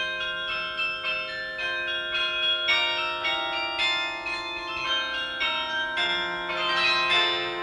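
Credits music of bell-like chimes striking notes in quick succession, each note ringing on beneath the next.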